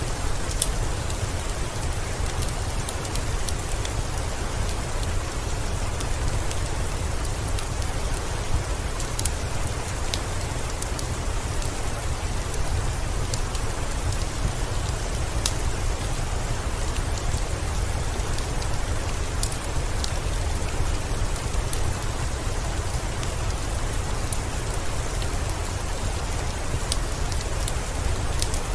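Heavy rain falling steadily with a deep low rumble underneath, mixed with a fireplace crackling in scattered sharp pops.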